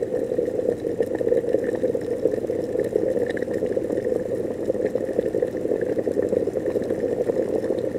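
Water in an electric kettle bubbling steadily as it comes to the boil, a continuous rushing rumble. This is the characteristic sound of trapped air escaping as the water reaches its boiling point of about 100 °C.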